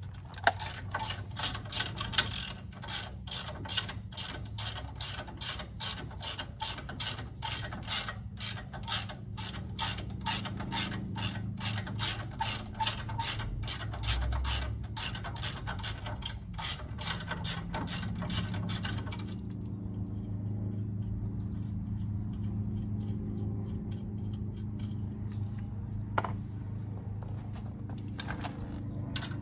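Hand ratchet wrench clicking in a fast, even rhythm, about three clicks a second, as the four nuts holding the Jeep's rear axle shaft are backed off. The clicking stops about two-thirds of the way through, leaving a low steady hum.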